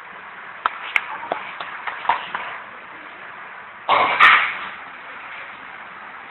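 Budgerigars chirping: a scatter of short chirps and clicks, then a louder harsh squawk about four seconds in.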